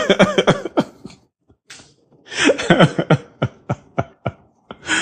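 A man laughing in bursts. After a short pause a longer laugh breaks into a quick run of short ha's that fade away.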